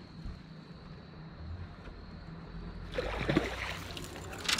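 A hooked striped bass thrashing and splashing at the surface as it is pulled from the water, starting about three seconds in, with a sharp splash near the end. A low steady hum runs underneath before it.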